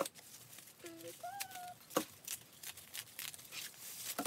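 Crinkling and rustling of white packing material being pulled out of a cardboard shipping box, with sharp crackles three times. A brief hum of a voice about a second in.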